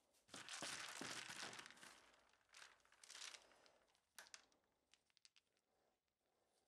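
Faint rustling of a hand stirring through dry wood shavings in a plastic crate, in two spells, followed by a few light clicks of small turned wooden balls knocking together.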